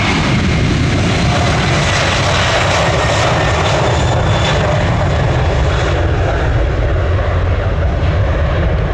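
Jet airliner passing close by: a loud, steady rush of engine noise with a faint high whine, the upper part of the sound easing off after about six seconds.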